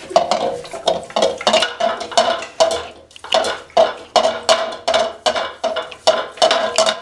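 A utensil stirring borax into warm water in a bowl, clinking against the bowl's sides about two or three times a second, each clink ringing briefly, with a short pause about three seconds in.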